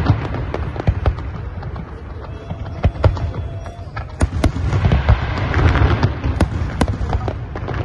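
Aerial fireworks bursting: a run of sharp bangs and crackles, about one or two a second, over a continuous low rumble.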